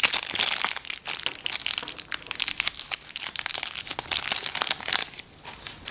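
Crinkly packaging being crumpled and handled by hand: a dense run of sharp crackles that thins out and gets quieter near the end.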